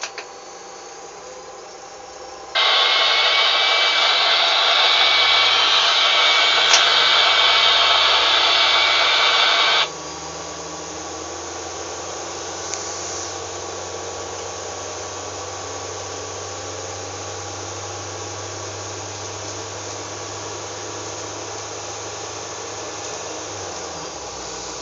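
Diesel railcar running along the track, heard from inside the driver's cab. A loud, even hiss comes on suddenly about two and a half seconds in and cuts off abruptly some seven seconds later, leaving quieter running noise with a steady low drone.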